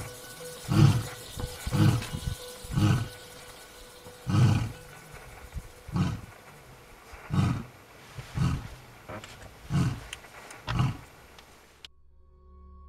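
Male African lion roaring: a run of about ten deep grunting calls, roughly one a second, that cuts off abruptly about a second before the end.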